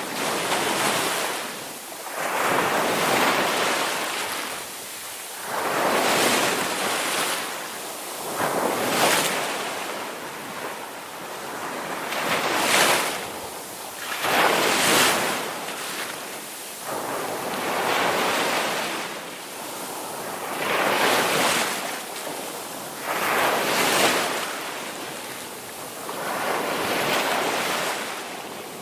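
Ocean waves breaking on a beach, the surf swelling and falling back about every three seconds.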